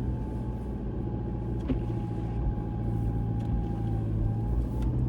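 Toyota Fortuner SUV's engine running steadily with a low rumble as it drives through soft sand on a 4x4 track, the tyres starting to dig in.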